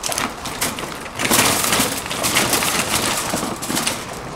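Loaded wire shopping cart pushed over rough dirt ground, its wheels and metal basket rattling and clattering. It is loudest in the middle and eases off near the end.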